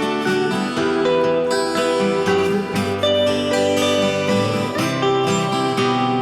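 Background music led by acoustic guitar, with plucked notes and a steady flow of changing chords.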